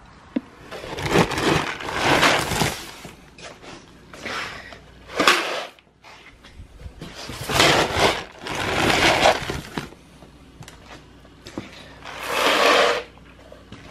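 Dry hay rustling and crunching as it is pulled and tossed for goats, in four bursts separated by brief pauses with small clicks.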